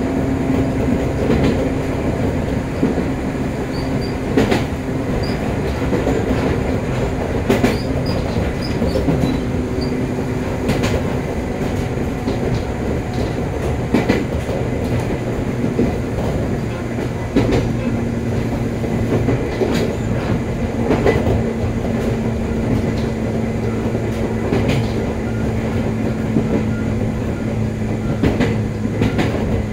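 Joshin Line electric train running along the track, heard on board: a continuous rumble with a low steady hum whose pitch steps down a little about halfway through, and irregular sharp clicks as the wheels pass rail joints.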